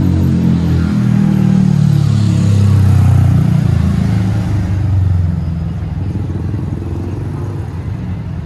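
Street traffic passing close by: a car and then motorcycles, their engines running loudly for the first five seconds, then fading.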